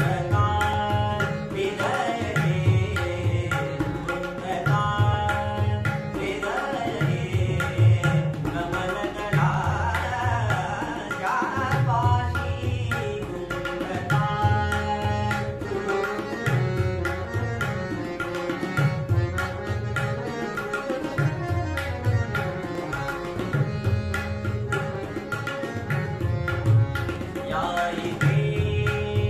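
A male voice singing a Marathi natya sangeet song in gliding classical style, accompanied by harmonium and tabla. The tabla's deep bass strokes keep a steady rhythm.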